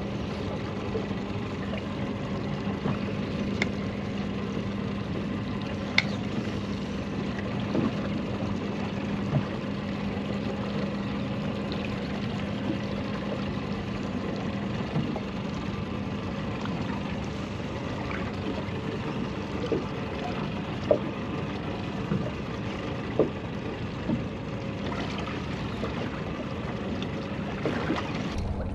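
Small boat's outboard motor running with a steady hum, water washing against the hull, and a few short sharp clicks.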